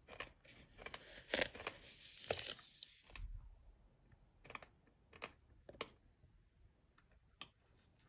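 Metal spoon digging and scraping through dry sand in a plastic bucket: a dense gritty scratching for about three seconds, then a handful of separate sharp crunches.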